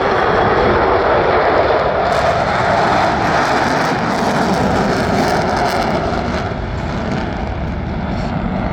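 Blue Angels F/A-18 Super Hornet jet flying past, a loud continuous jet roar. Its high hiss drops away about two-thirds of the way through, and the roar eases slightly toward the end.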